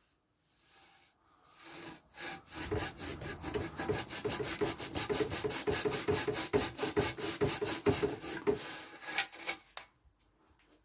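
Rust being scrubbed off the metal of a Raleigh Chopper bicycle by hand, in quick, steady back-and-forth strokes. It starts about two seconds in and stops about a second before the end.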